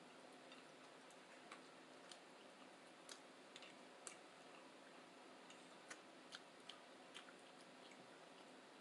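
Faint eating sounds over near silence: about ten soft, irregularly spaced clicks and ticks from chewing and handling food.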